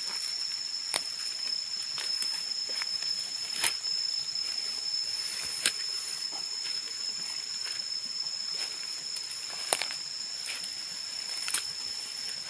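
Tropical forest ambience: a steady high-pitched insect drone, with irregular sharp snaps and crackles every second or so.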